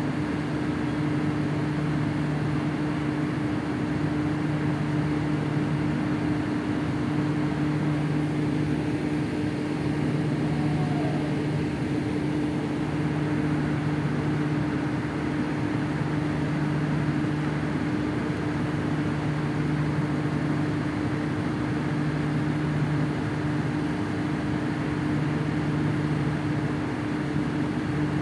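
Steady machinery hum with a constant tone and a second, lower tone that cuts in and out every few seconds.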